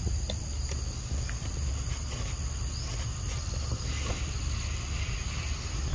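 Steady high-pitched drone of forest insects such as cicadas or crickets, over a low rumble, with a few faint clicks.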